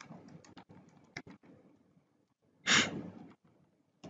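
Computer keyboard keys being typed in a quick run of clicks, then one short, louder rush of noise like a breath about three seconds in.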